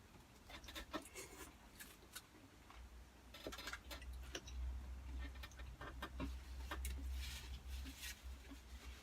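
Quiet eating sounds: scattered clicks and scrapes of cutlery against the food tray, with a low rumble underneath from about three seconds in.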